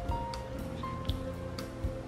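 Background music with a melody over a bass line and a light beat.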